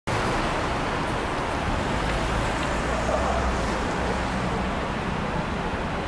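Steady city street traffic: cars running through the intersection, with a low engine rumble that is strongest for the first four seconds or so.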